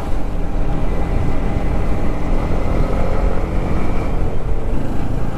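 Heavy wind rush on a helmet-mounted clip-on microphone from a Yamaha MT-15 motorcycle at cruising speed, with the engine's steady hum underneath, rising a little as the bike speeds up.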